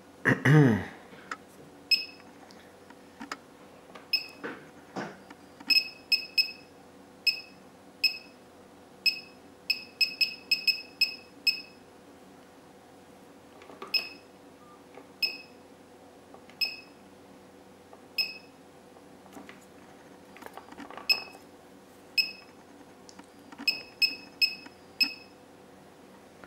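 Short electronic key beeps from a digital function generator, about thirty of them, some spaced a second or more apart and some in quick runs of several a second, as its settings are stepped through. Light clicks of handling fall among them, with a louder brief rustle about half a second in.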